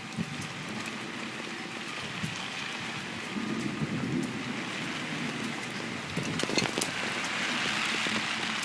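Steady rain falling during a thunderstorm, growing heavier over the last few seconds, with a few sharp drop ticks.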